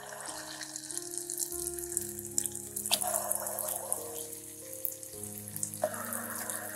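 Pieces of yogurt doughnut dough frying in hot vegetable oil, sizzling and crackling. The sizzle flares up suddenly about three seconds in and again near the end as fresh dough drops into the oil, then settles back.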